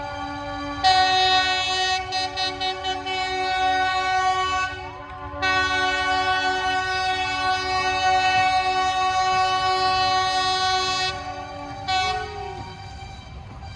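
Narrow-gauge diesel locomotive horn sounding. A steadier horn tone swells into a loud blast about a second in and breaks into several short pulsing toots. After a brief gap near five seconds comes one long blast of about six seconds, then a short final toot near twelve seconds.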